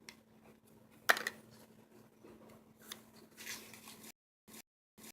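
Handling noises from unboxing product packaging: a sharp click about a second in, then light rustling. About four seconds in the sound cuts off to dead silence, broken by short blips about twice a second.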